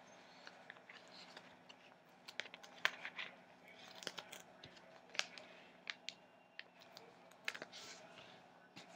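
A sheet of paper crinkling and rustling as it is handled, with irregular sharp crackles.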